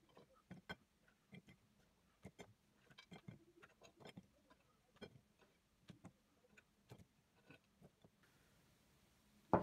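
Walnut-shaped baked cookies being set down one by one on a ceramic plate: faint, irregular light clicks and taps, one or two a second, with a louder knock right at the end.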